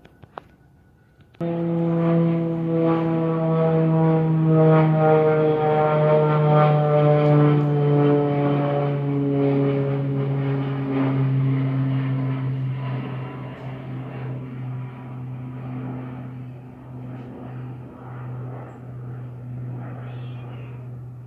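Airplane passing overhead: a loud engine drone that starts abruptly about a second and a half in, with its pitch slowly falling as it goes by, then fading away.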